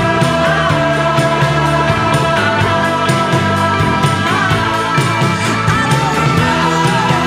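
Rock music with a steady drum beat and a melody line that slides between notes.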